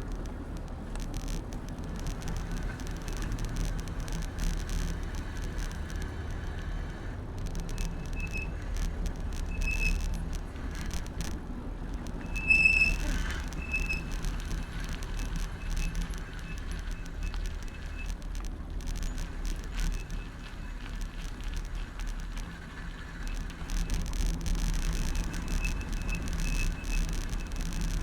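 Bicycle riding heard from a handlebar-mounted camera: a steady low rumble of tyres and wind, with frequent rattling clicks and short high squeaks several times, the loudest about halfway through.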